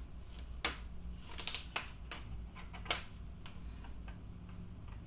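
The plastic screen bezel of a Lenovo Ideapad 110-15ISK laptop is being pried off by hand. Its retaining clips snap loose in a series of irregular sharp clicks, the clearest about half a second in and about three seconds in, with a small cluster between them.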